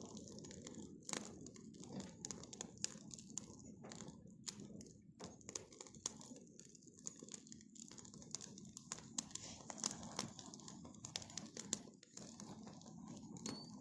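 Bonfire crackling: irregular sharp snaps and pops over a steady low rush.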